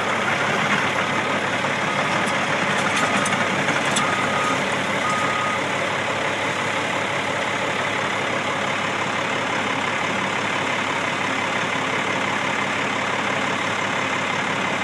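Cat hydraulic excavator's diesel engine running steadily as it works at a loaded flatbed truck, with a backup alarm beeping several times during the first five seconds or so.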